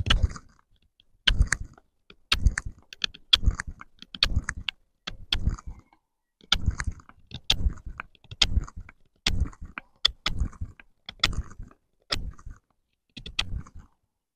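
A flat-ground J&V Cantero bushcraft knife cutting into a wooden stick. It makes a run of short, sharp whittling strokes, one or two a second, as a notch and point are carved.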